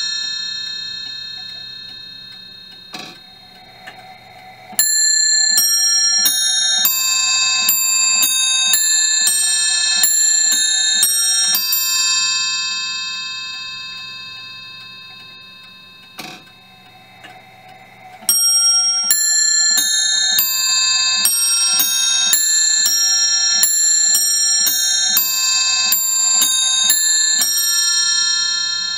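Automaton clock's wizard figure striking a nest of four bells to play the quarter chimes: two runs of bell strikes, each about seven seconds long and each led in by a single mechanical click, with the bells ringing on and dying away between and after them.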